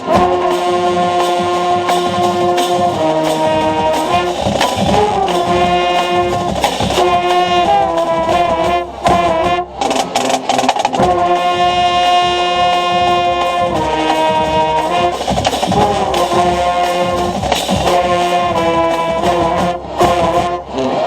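Marching band playing: the brass section holds loud chords over drumline strikes, heard from inside the band by a mellophone player. The music breaks off briefly about nine seconds in and comes back in.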